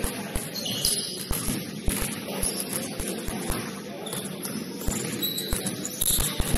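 Indoor basketball game sounds: a ball bouncing on the court, thudding a few times a second at an uneven pace, with brief high sneaker squeaks and a constant background hubbub in the gym.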